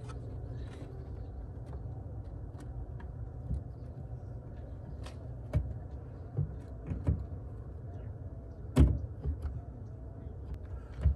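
Plastic clicks and knocks as an Intec carbon-fiber tail light housing is pushed into place on a Subaru BRZ's rear body panel, about half a dozen separate knocks, the sharpest about nine seconds in. A steady low hum runs underneath.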